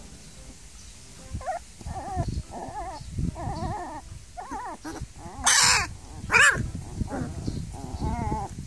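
Newborn Thai Ridgeback puppies whimpering and crying in short wavering squeaks, starting about a second and a half in, with two louder, shrill cries around the middle.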